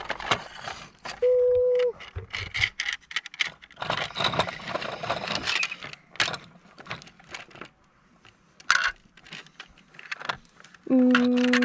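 Plastic toy construction vehicles and small toy pieces clattering and scraping on a wooden tabletop as pieces are dropped into a loader bucket. A short electronic beep sounds about a second in, and near the end a louder, steady electronic tone starts and holds.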